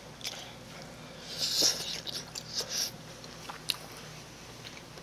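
Close-miked eating: slurping saucy noodle strands from a bowl of mala tteokbokki, then wet chewing with small mouth clicks. The two loudest slurps come about one and a half and two and a half seconds in.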